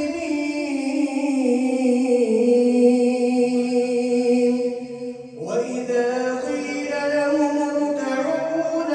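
Man reciting the Quran in the melodic tajweed style, drawing out long held notes. There is a brief pause about five seconds in, then a new phrase begins with a rising note.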